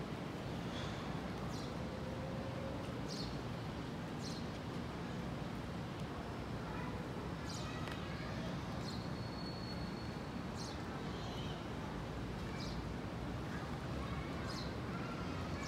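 Steady low outdoor background hum with short, high chirps every second or two, small birds calling.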